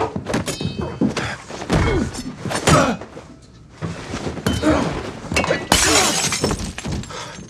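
Fight sound effects: repeated blows, thuds and grunts, with glass breaking. A loud crash of shattering glass comes about six seconds in.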